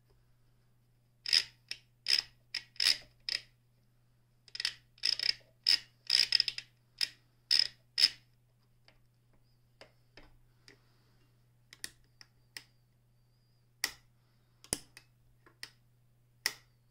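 Sharp metal clicks from the stitch-length lever and locking knob of a Brother Window-Matic sewing machine being moved by hand: a quick run of clicks over several seconds, then scattered single clicks.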